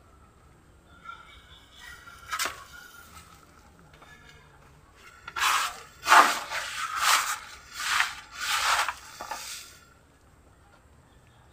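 Potting soil being scooped and handled right by the microphone: a faint tap a couple of seconds in, then a run of five loud rustling scrapes, roughly one a second, from about halfway through.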